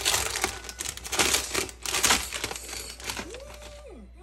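Clear plastic zip bag crinkling and rustling as hands open it and pull carrots out, loudest over the first two seconds and then softer.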